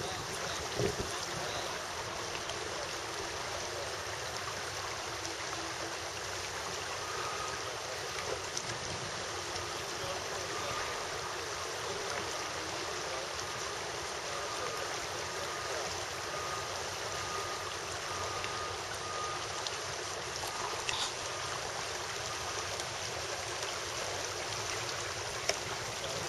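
Steady rushing of river water running over a shallow riffle.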